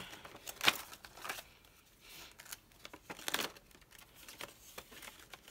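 Paper banknotes rustling and crinkling as a stack of bills is handled and flipped through over a plastic cash binder. The rustles are irregular, with the loudest ones just under a second in and a little past three seconds.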